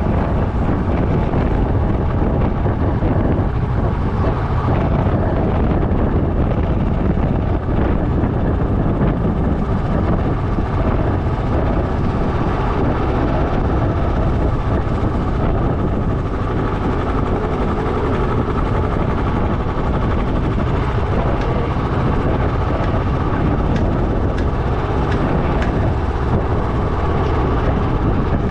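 A motorcycle ridden at a steady pace, with wind rushing over the helmet- or bike-mounted action camera's microphone and the engine and tyre noise blended into a constant rumble.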